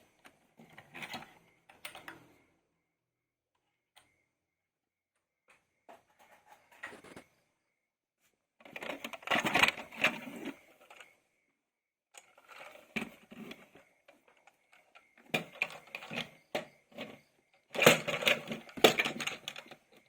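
Plastic toy vehicles and their packaging being handled: irregular bursts of clicking and rattling, separated by short silences.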